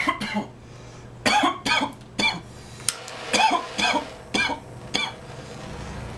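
A man coughing repeatedly, about nine short, harsh coughs in loose clusters, after inhaling a dab of cannabis concentrate.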